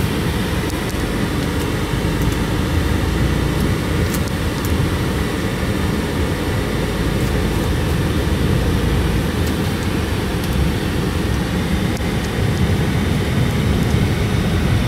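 Mercedes-Benz Actros 1845 tractor truck heard from inside the cab while driving: its straight-six diesel running steadily under road and tyre noise, a continuous low rumble.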